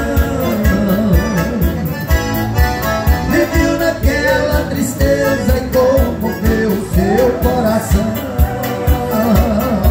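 Live band music with no words sung: an arranger keyboard plays the accompaniment over a steady beat while a melody line carries the tune, taken up by a harmonica toward the end.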